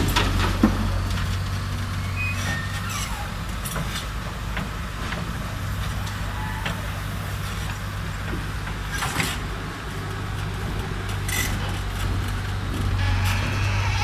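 Backhoe loader's diesel engine running steadily, with a few short knocks scattered through it.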